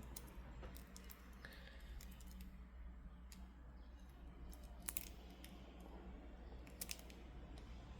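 Faint, irregular small clicks of stone beads being handled while a crystal bracelet is restrung, over a low steady room hum.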